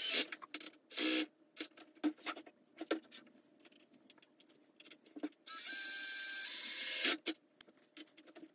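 Cordless drill/driver running screws into a plastic hinge: a short spin at the very start and a longer one of about a second and a half in the middle, with clicks and knocks of small hardware being handled in between.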